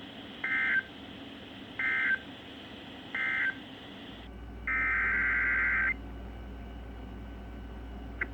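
Emergency Alert System SAME data tones, a buzzy digital warble. Three short, evenly spaced bursts form the end-of-message code that closes a NOAA Weather Radio alert. About a second after a faint low hum sets in, one longer burst of the same warble follows.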